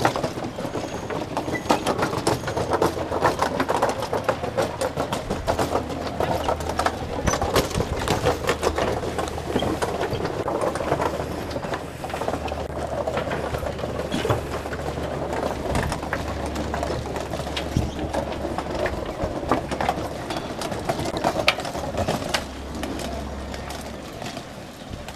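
Continuous rattling clatter of rolling suitcase wheels over wooden footbridge planks and paving, with footsteps on the boards; it quietens near the end.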